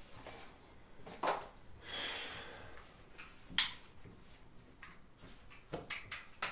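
Kitchen handling sounds while pide dough is divided into balls: a few light knocks, a brief rustle about two seconds in, and a sharp click about halfway through, the loudest sound.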